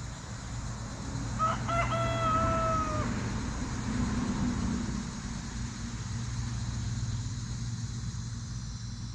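A rooster crowing once, about a second and a half in, ending on a long held note. A steady low hum runs underneath.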